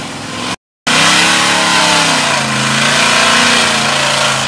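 Mud-bogging pickup truck's engine revving hard under load, its pitch wavering up and down, over a dense rushing noise of tyres churning through deep mud. The sound cuts out for a moment about half a second in, then comes back loud.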